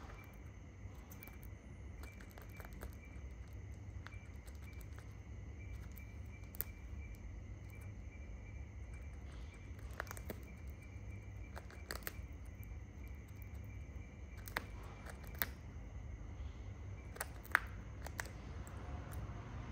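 A shikra's beak tearing and plucking at a pigeon carcass: scattered sharp clicks and snips at irregular intervals, the loudest near the end. Underneath runs a steady low hum and a faint, evenly repeated high chirp.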